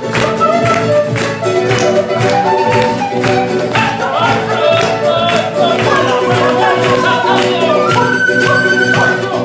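Live Andean folk music: acoustic guitar and charango strummed in a steady rhythm under a melody on an Andean flute, with held notes and a long high note near the end.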